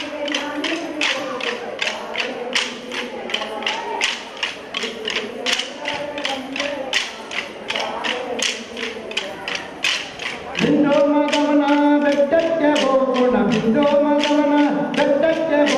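Kolata dance sticks clacking together in a steady rhythm, about three strikes a second, under a group of voices singing a folk song. The singing becomes markedly louder about two-thirds of the way through.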